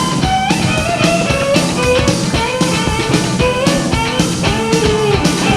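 Live rock band playing an instrumental passage: drums and bass under a lead line of sliding and held notes from electric guitar and violin.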